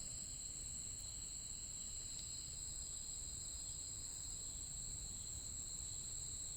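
Insects calling in a steady, high-pitched chorus. One lower strand of the chorus drops out about two and a half seconds in.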